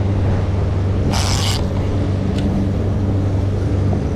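Outboard engines running steadily as the boat trolls under way, a constant low hum, with a brief burst of hiss about a second in.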